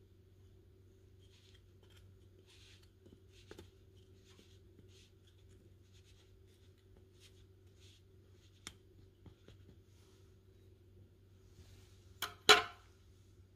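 Metal teaspoon scraping lightly over ground coffee in a Bialetti Brikka moka pot's filter basket, a run of soft repeated swishes with a few faint ticks of the spoon on the basket's metal rim. Near the end come two sharp metal clicks close together, the loudest sounds.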